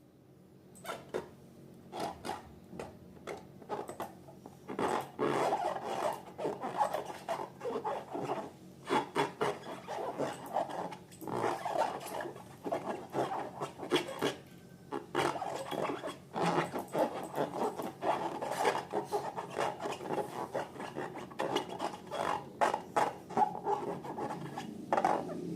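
Slime being stirred and worked in a container: a continuous run of small sticky clicks and scraping, getting busier about five seconds in.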